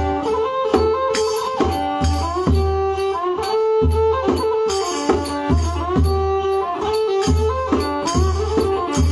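Kantrum mahori ensemble playing an instrumental passage: a bowed fiddle's sliding melody over drums beating a steady rhythm of about one stroke a second, with small percussion clicking on top.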